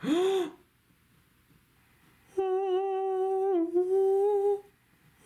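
A man's voice: a short rising-and-falling hum at the start, then after a pause a long held hummed note with small dips in pitch.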